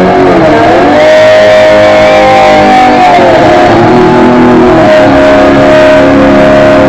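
Electric slide guitar playing long, loud held notes that glide up and down in pitch, imitating a motorcycle engine revving.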